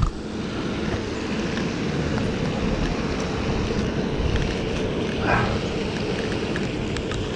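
Steady wind rumble buffeting the microphone. About five seconds in there is a short whoosh as a spinning rod casts a lipless rattling crankbait.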